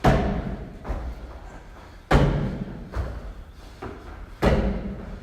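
Barbell loaded with 20 kg bumper plates landing on the floor three times, a little over two seconds apart, each thud ringing briefly, with lighter knocks in between.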